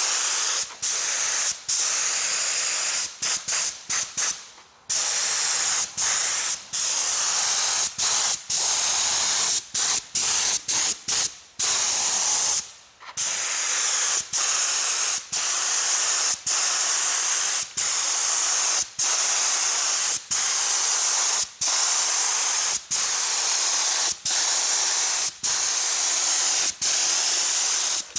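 Compressed-air gravity-feed paint spray gun hissing as paint is sprayed, in passes broken by short breaks about every second, with longer pauses about four seconds and twelve seconds in.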